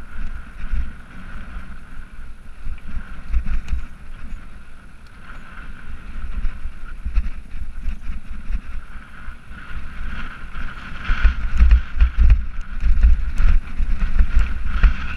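Wind buffeting a GoPro's microphone during a mountain-bike descent on a rocky dirt trail, with a steady whir and the rattle and knocks of the bike over stones, which get busier from about ten seconds in.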